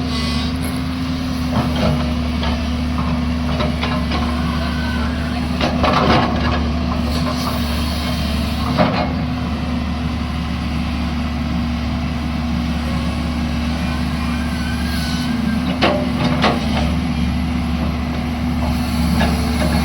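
A heavy diesel engine running steadily, with a few short knocks and clanks over it.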